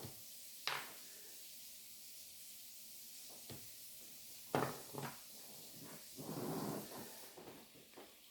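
A few sharp, separate clicks and taps of small plastic toy parts and gears being handled and fitted, the loudest about halfway through. A short stretch of handling noise follows near the end, over a steady background hiss.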